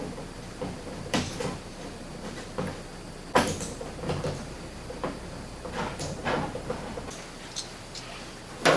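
Irregular knocks and clicks of quick-attach plunger hardware being handled and fitted against an empty cargo box, with a sharper knock near the end.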